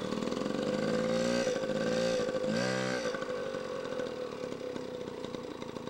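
Small youth dirt bike's engine running at a steady, high-pitched idle, swelling briefly twice in the first three seconds.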